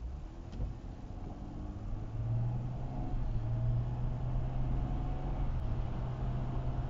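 Car engine and road noise heard from inside the cabin: a steady low hum that grows louder about two seconds in.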